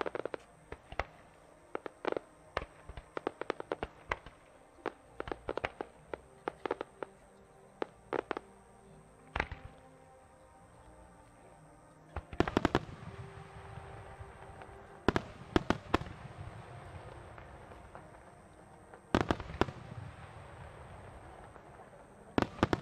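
Fireworks display: a rapid run of sharp pops and crackles through the first half. From about halfway, a few clusters of louder aerial shell bursts, each followed by a rolling rumble.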